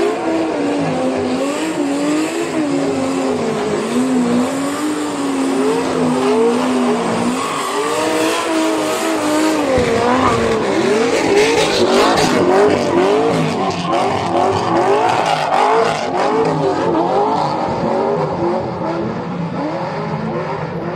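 Drift car engines running at high revs. For the first few seconds the engine note is fairly steady; from about eight seconds in the revs swing rapidly up and down as the car slides, with tyres screeching.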